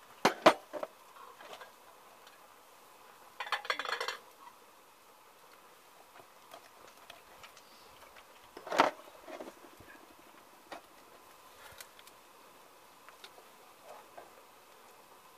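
Metal shears and a knife clinking against an enamelled saucepan while a carp is cleaned in it, with two sharp clinks at the start and another about nine seconds in. A short scraping rasp comes about three and a half seconds in, and faint scattered ticks sound in between.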